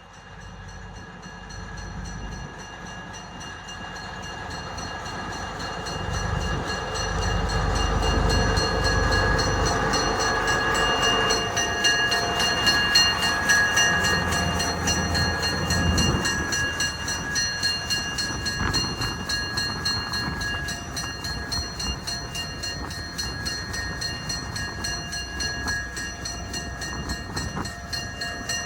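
A railroad train, a locomotive hauling a caboose, draws near and runs past. Its rumble grows louder over the first several seconds, then holds. A steady high-pitched ringing rides over it, and a regular clicking of wheels on rail joints comes in near the end.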